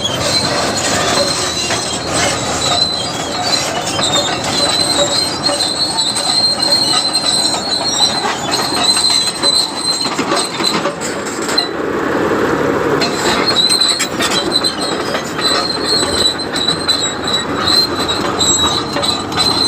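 Bulldozer at work: a diesel engine running under load under a steady high-pitched metallic squeal and clanking, typical of steel crawler tracks.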